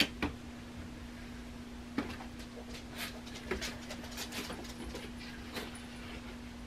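Rummaging through an open refrigerator: scattered light clicks and knocks of containers and packages being moved on the shelves, over a steady low hum.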